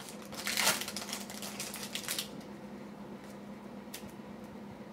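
Crinkling of a plastic trading-card pack wrapper being torn and pulled off the cards, loudest in the first second and fading out after about two seconds. After that the cards are handled quietly, with a couple of light clicks.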